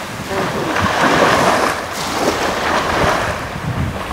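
Small waves washing onto a sandy beach, swelling and ebbing, with wind rumbling on the microphone.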